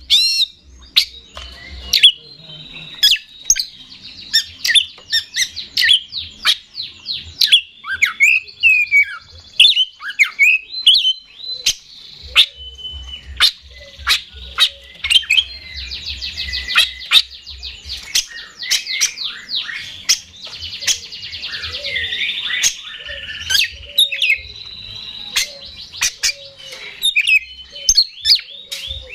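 Oriental magpie-robin singing a continuous, varied song of whistled phrases and sharp notes, with fast rattling trills about halfway through.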